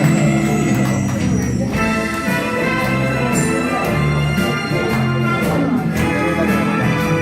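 Instrumental backing music for a Japanese kayōkyoku song, with a steady beat and sustained instrumental notes, without singing.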